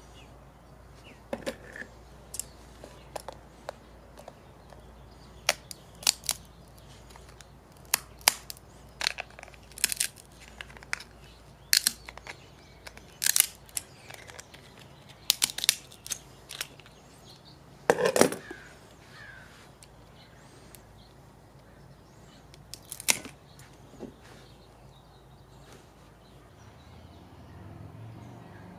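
Shell of cooked California pink crab legs being cracked by hand and snipped with kitchen shears: a string of sharp, irregular snaps and crunches, the loudest a cluster about two-thirds of the way through.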